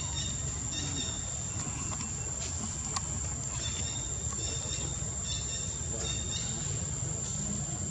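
Outdoor insect drone, a steady high-pitched whine, with short chirps recurring every second or so over a low steady rumble.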